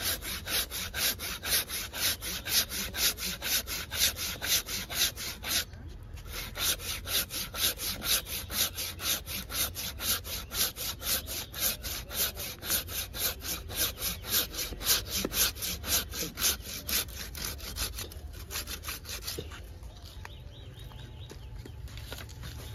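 Hand pruning saw cutting through a thick live branch of a Celtis australis (nettle tree) bonsai in quick, even back-and-forth strokes. The strokes pause briefly about six seconds in, then carry on until the branch is cut through about twenty seconds in.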